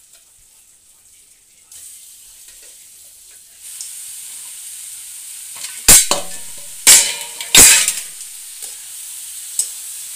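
Frog meat frying in hot oil in a wok, with a steady sizzle that grows louder about three and a half seconds in as the meat goes in. Around the middle come three loud metal clanks of ladle and pan, then the sizzling carries on.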